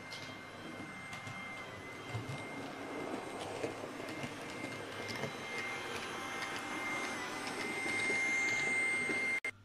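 H0-scale model train, an ÖBB electric locomotive hauling wagons, running over the layout's track: the rumble and light clicking of wheels on rail with a steady high motor whine. It grows louder toward the end and cuts off suddenly near the end.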